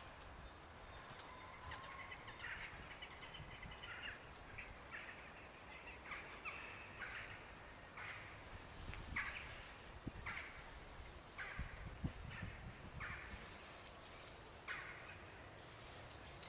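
Birds calling outdoors: a series of short repeated calls, thickest in the middle of the stretch, with a few higher falling chirps near the start, over a faint steady background.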